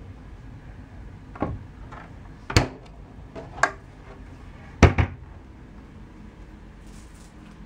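A minibar fridge and its wooden cabinet door being shut: a run of short knocks and clunks, then a loud double knock about five seconds in as the door closes.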